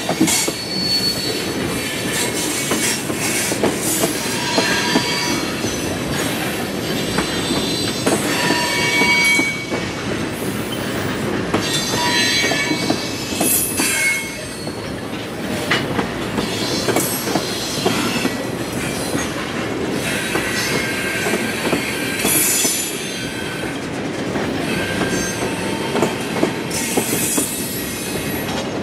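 Freight train cars rolling past steadily, the wheels clicking over the rail joints, with short high-pitched squeals from the wheels on the rail coming and going every few seconds.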